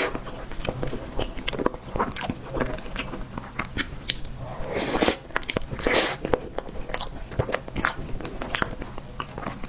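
Close-miked eating sounds: a person biting and chewing, with many short mouth clicks and a couple of louder bites about five and six seconds in.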